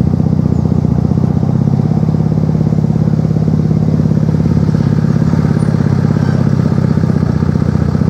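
Car engine idling steadily with an even low pulse.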